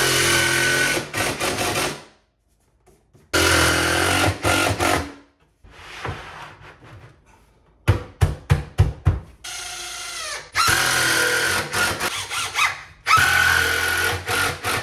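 Power drill driving screws down through wood, in several runs of a second or two each with pauses between. Midway comes a quick run of about half a dozen sharp clicks, then the motor spins up with a rising whine.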